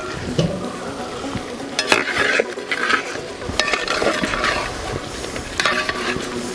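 A spoon stirring a thick, nearly dry rabbit roast masala in a pan on the heat, with repeated scraping strokes against the pan over a light sizzle as freshly added spice powders are mixed in.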